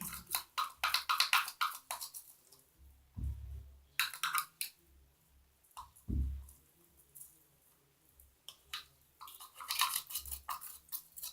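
Slime mixture of glue and borax water being stirred in a container: quick runs of wet, sticky clicks and squelches in bursts, with a few dull knocks between them.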